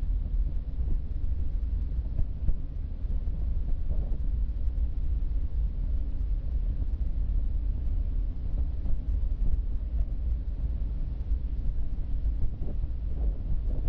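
Car driving along a road: steady low rumble of tyres and engine picked up by the dashcam, turning a little brighter near the end.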